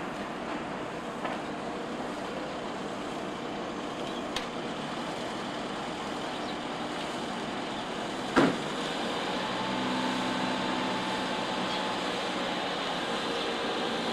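Station platform ambience beside a stopped electric train: a steady noise bed with a light click about four seconds in and a sharp knock a little after eight seconds, the loudest sound. A faint steady hum joins at about ten seconds.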